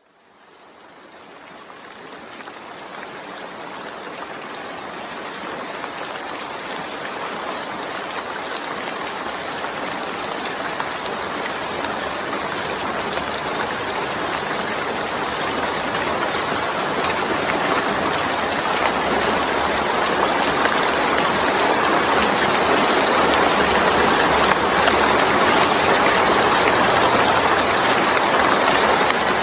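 Steady rain, a dense hiss of many fine drops, fading in from silence and growing gradually louder.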